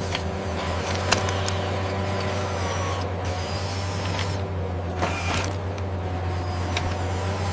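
Small motor-driven machinery running with a steady hum, with a few sharp clicks or knocks along the way.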